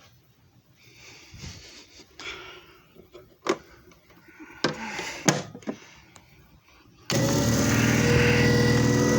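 A few light clicks and knocks of handling, then about seven seconds in the JFJ Easy Pro disc repair machine's motor switches on abruptly and runs with a steady hum and a high whine.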